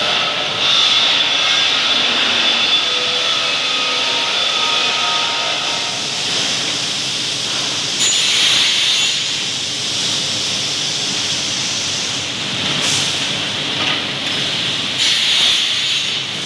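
Steel rolling mill for TMT bars in operation: a loud, steady hiss with machinery noise from the roller line carrying hot bars. Faint whining tones come in the first few seconds, and there are several brief louder surges of hiss later.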